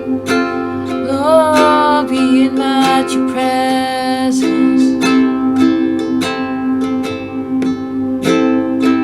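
Slow worship music: an acoustic string instrument strummed in steady, gentle chord strokes. About a second in, a voice sings a few long notes, sliding up into the first.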